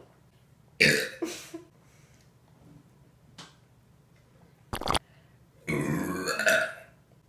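A woman burping after drinking carbonated soda: a short burp about a second in and a longer, wavering burp near the end, with a brief sharp sound between them.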